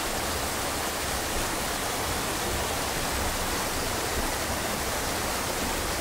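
Mountain waterfall running over icy rocks: a steady, even rush of falling water.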